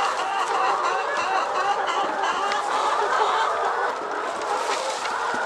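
A flock of laying hens clucking together, many birds calling over one another in a continuous chatter.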